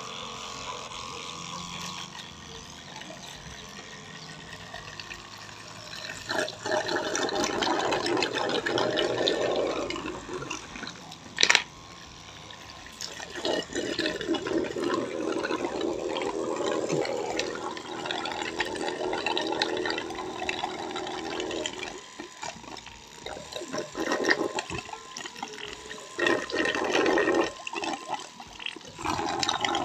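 Water rushing in several long bursts of a few seconds each, with one sharp click about eleven seconds in.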